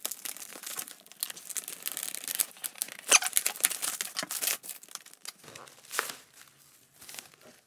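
Scissors cutting through plastic packing film, the film crinkling and crackling as it is cut and pulled open. The crackles come thick for the first five seconds, then grow sparse and die down near the end.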